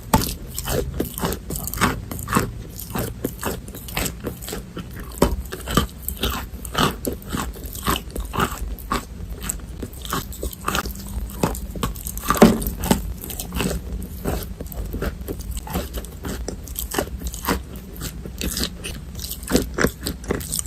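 Pieces of chalk bitten and chewed close to the microphone: a continuous run of irregular, dry crunches and crackles, with one especially loud crunch a little past the middle.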